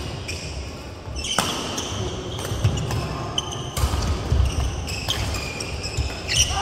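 Badminton doubles rally: sharp racket hits on the shuttlecock every couple of seconds, court shoes squeaking and feet thudding on the wooden floor as the players move.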